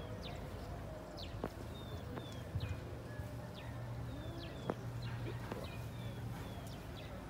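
Birds chirping in short, high, repeated notes, one or two a second, over a steady low hum, with a few faint clicks.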